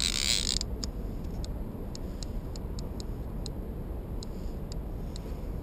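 Fishing reel ticking irregularly, about two sharp ticks a second, as a hooked white sturgeon is played on a heavy rod. Over a steady low rumble, with a loud hiss that stops about half a second in.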